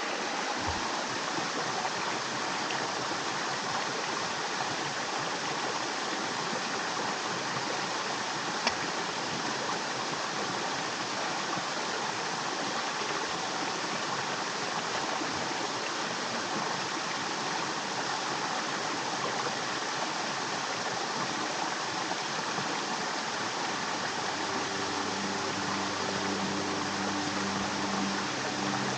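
Stream water rushing steadily over rocks, with one sharp click about nine seconds in. A low steady hum of several held tones comes in near the end.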